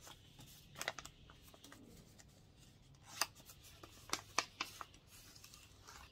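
A small cardboard sticker packet being handled and torn open: paper rustling, with sharp crackles about a second in and a cluster of them around three to four and a half seconds in.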